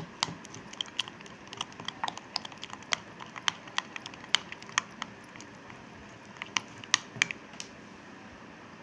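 A spoon beating thick batter in a glass bowl, clicking sharply and irregularly against the glass a few times a second. The clicks pause briefly past the middle and stop near the end.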